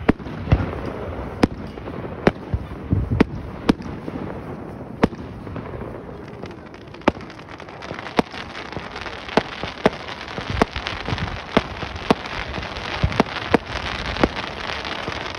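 Aerial fireworks going off: a string of sharp bangs at irregular spacing, roughly one or two a second, over a crackling hiss that grows thicker in the second half.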